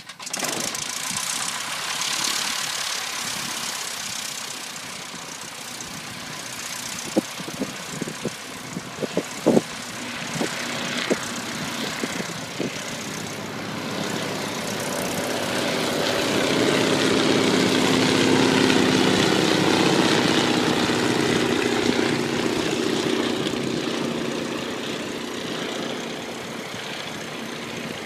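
Piston engine of a vintage light aircraft flying past: the engine drone swells from about halfway through, is loudest about two-thirds of the way in, then fades. A few sharp knocks come a third of the way in.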